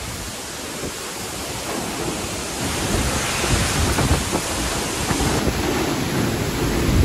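Wind buffeting the microphone: a steady rushing noise with heavy low rumble, growing louder after about two seconds.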